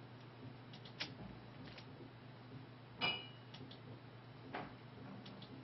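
A few short, sharp computer mouse clicks, the loudest about three seconds in, over a faint steady low hum.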